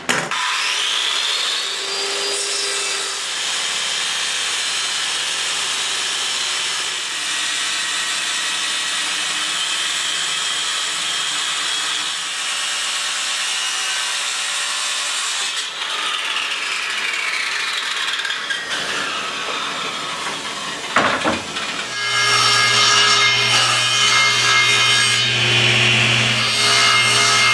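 Power saws cutting medium-density fiberboard (MDF). A circular saw run along a clamped straightedge spins up, cuts steadily and winds down with a falling pitch. About 22 seconds in, a table saw starts with a low motor hum and cuts MDF panels.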